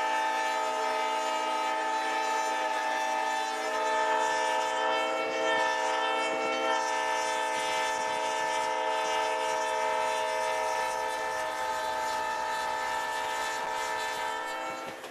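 Locomotive air horn held in one long, steady blast, a chord of several tones, cutting off just before the end.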